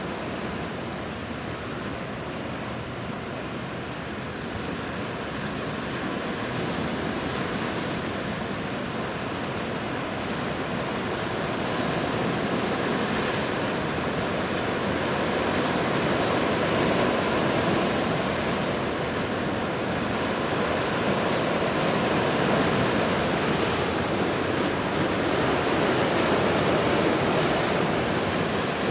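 Sea waves washing along the shore: a steady rushing noise that swells slowly and grows louder over the second half.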